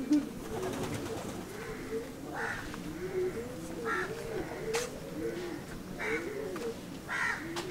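Several pigeons cooing, their low coos rising and falling in pitch and overlapping throughout, with a sharp click about five seconds in.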